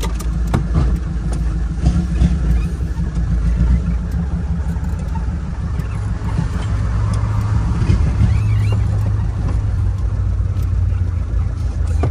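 Fiat 147's engine running as the car is driven, heard from inside the cabin, its note growing stronger for a few seconds about halfway through.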